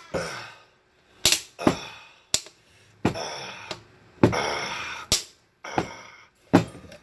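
Snap-on lid of a plastic pail being pried off by hand: a series of sharp plastic snaps and cracks as the rim pops free, about six in all, with stretches of creaking plastic between them.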